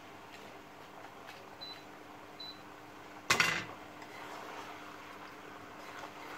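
Boiled macaroni being stirred with a wooden spoon in a metal cooking pot as masala is mixed in, with one short, loud noise about three seconds in that fades quickly.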